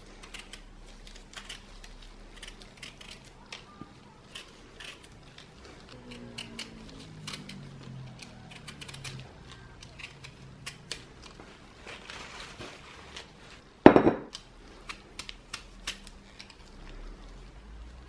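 Y-shaped vegetable peeler scraping the skin off a raw potato in many short, quick strokes, with one louder knock about 14 seconds in.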